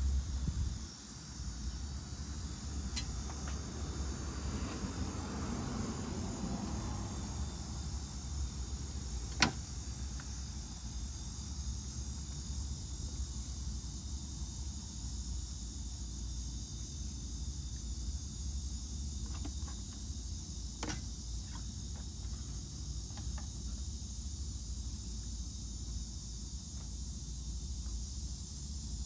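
Hands working a rubber intake coupler onto a plastic cold air intake tube in a car's engine bay: scattered handling rustles and light clicks, with one sharp click about nine seconds in. A steady high-pitched hiss runs underneath.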